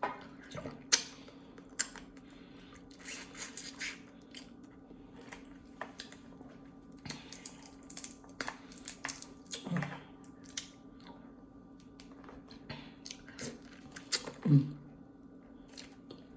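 A person eating crab in butter sauce close to the microphone: wet chewing and lip-smacking with many scattered clicks and short crackles, and a couple of brief low hums about ten and fourteen seconds in.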